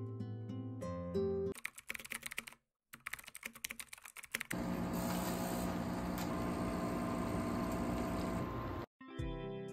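Guitar background music, then about three seconds of rapid keyboard-typing clicks with a brief break. Then an automatic coffee machine runs with a steady whir and hum for about four seconds as it pours coffee into a paper cup, stopping sharply just before the music comes back.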